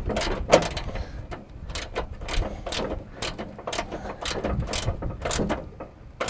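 7/16-inch wrench clicking against a nut as it is cranked tight on a riding mower's steel deck: an irregular series of sharp metal clicks, a few a second.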